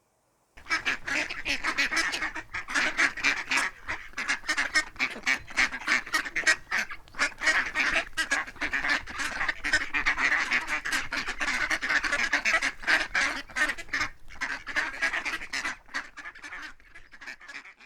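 Ducks quacking: a group calling continuously, many quacks overlapping in quick succession, thinning out near the end.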